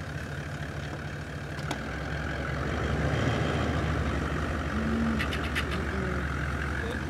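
Toyota Land Cruiser pickup's engine running as it tows a loaded rhino trailer slowly forward, growing louder in the middle as it pulls, with a few short clicks.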